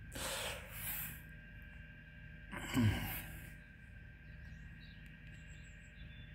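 A person exhaling close to the microphone, with a breathy sigh about three seconds in that falls in pitch, over a faint steady hum.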